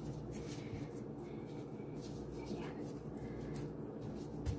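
Faint rustling and rubbing of disposable plastic gloves as hands press and smooth a sheet of dough on a countertop, over a steady low hum, with one soft thump near the end.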